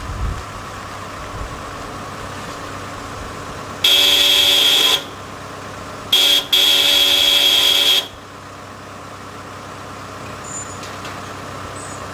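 Car horn sounding three times: a blast of about a second, a short tap, then a longer blast of about a second and a half. A vehicle's engine runs steadily underneath.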